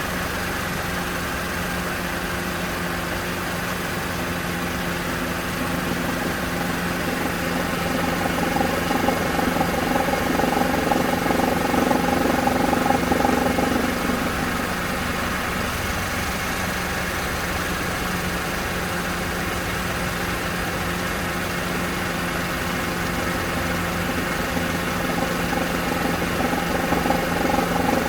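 Mercedes-Benz CLK 200 Kompressor's supercharged four-cylinder engine idling in gear with a steady hum, and a louder knocking swell that comes and goes: it builds about eight seconds in, fades around fourteen seconds, and builds again near the end. The cause of the recurring knock is undiagnosed.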